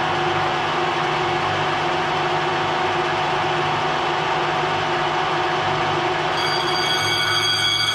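Ajax milling machine running steadily under power, a constant machine hum with several steady tones over a spread of mechanical noise. About six seconds in, higher whining tones join it.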